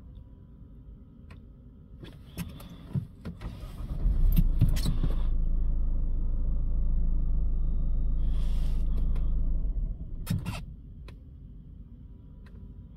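A few key or switch clicks, then a Ford Mondeo diesel engine running loudly for about six seconds before dropping back to a low hum, heard from inside the cabin.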